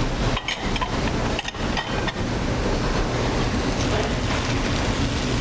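Chicken pieces and chopped onions, celery and carrots sizzling steadily in a black round pot over a gas burner, with a low rumble underneath and a few light clicks in the first two seconds.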